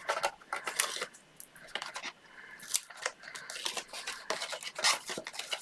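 Cardstock being handled and folded by hand: irregular rustling and crinkling of paper with small sharp crackles.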